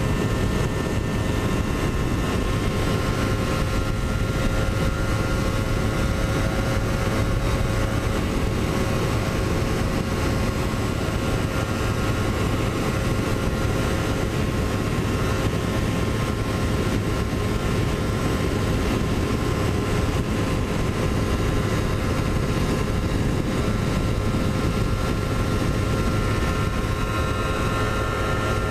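Kawasaki Ninja 250R's parallel-twin engine held at steady high revs on a flat-out top-speed run, with wind rushing past the microphone.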